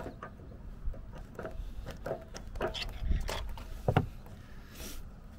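Steel screwdriver shaft, pushed through a recovery shackle's locking pin as a lever, clicking and knocking irregularly against the metal as the pin is turned tight, with one louder knock about four seconds in.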